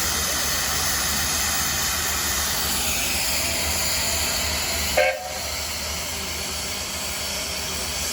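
1912 Case 40 hp steam traction engine running, with a steady hiss of escaping steam over a low rumble. About five seconds in comes a brief sharp sound, after which the hiss is a little quieter.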